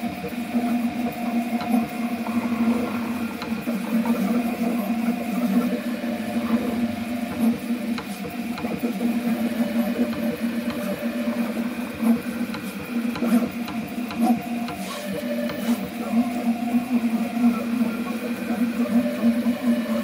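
3D printer at work, its motors whirring and clicking, under several steady tones held at once: the part-cooling fan's air blowing across the half-printed pipes of a four-tone train whistle makes the print sing.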